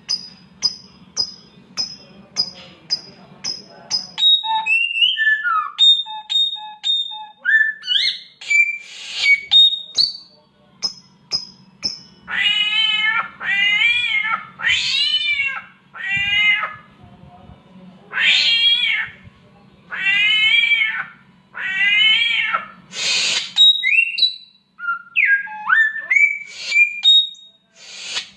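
Samyong bird singing and mimicking a cat in heat: a run of sharp, quickly repeated whistle notes, then gliding whistled phrases, then a series of long wavering meow calls through the middle, and more whistles near the end.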